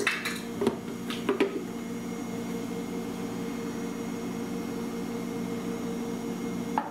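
A measuring cup scooping flour from a plastic container, with a few light knocks and scrapes in the first second and a half, over a steady kitchen appliance hum.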